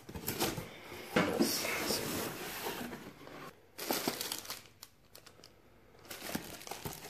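Cardboard packaging being handled as a box flap is opened, then plastic wrap and a zip-lock bag crinkling as hands rummage through bagged security cameras and lift out a bag of cables. Loudest in the first half, with a quieter pause a little after the middle.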